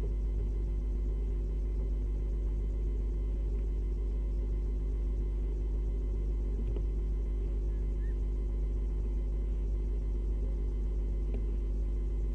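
A steady low hum, unchanging throughout, with a couple of faint clicks.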